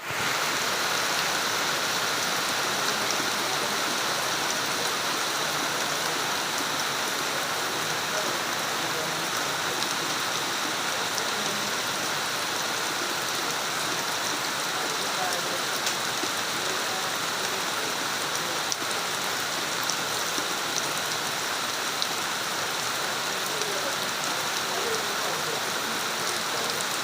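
Steady rain falling, with scattered individual drops heard as small ticks.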